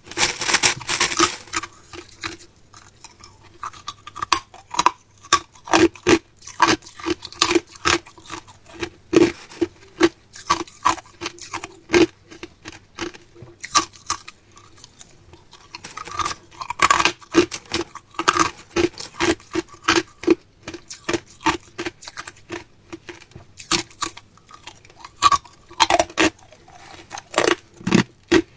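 Hard clear ice crunched and chewed between the teeth, a long run of sharp cracks and crunches, busier in spells. At the start a plastic bag of crushed ice crinkles as a piece is picked out.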